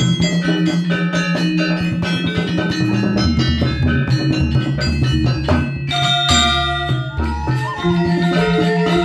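Balinese gong kebyar gamelan playing: bronze metallophones and kendang drums in fast, dense interlocking strokes. About six seconds in, a deep stroke rings out and the music thins to a calmer passage, with bamboo suling flutes holding wavering melody notes over a lighter beat.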